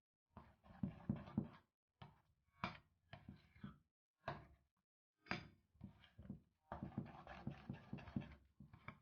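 A spoon stirring thick chocolate sponge batter, about the thickness of sour cream, in a bowl: irregular wet scraping and squelching strokes with short gaps between them.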